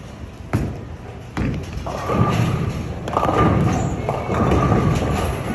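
A bowling ball thuds twice on the wooden lane, about half a second in and again near one and a half seconds, then rolls down the lane with a continuous low rumble.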